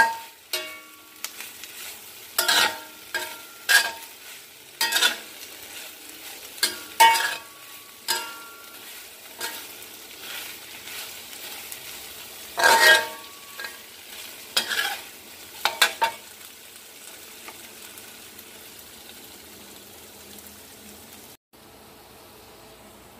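Metal spatula knocking and scraping against a stainless steel wok while shrimp and vegetables are stir-fried, each knock ringing briefly, over a steady sizzle. The knocks stop about two-thirds of the way through, leaving only the sizzling.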